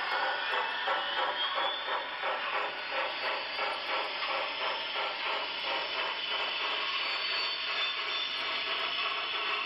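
HO scale Walthers Proto Union Pacific Heritage Fleet passenger cars rolling along model track: metal wheels running with a steady rattle and rapid, regular clicking.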